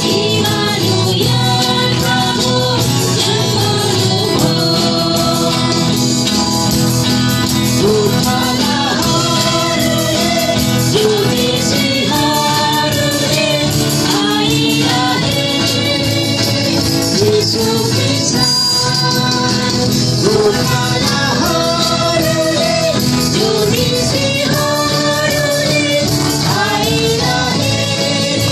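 A small group of mostly women's voices singing a Christian praise song together into microphones, with a tambourine shaken in accompaniment.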